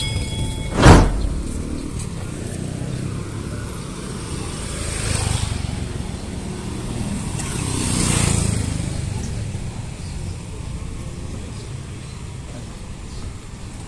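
Street traffic ambience while walking, with vehicles passing: one swells by about five seconds in and another about eight seconds in. A single sharp, loud click sounds about a second in.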